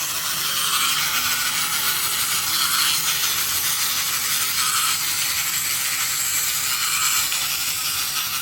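Wind-up toy chicken's clockwork spring motor running, with a steady mechanical whirring rattle as the spring unwinds and drives its feet.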